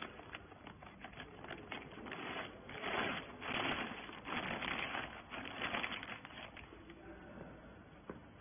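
Irregular clicking and rustling, heaviest in the middle and fading near the end.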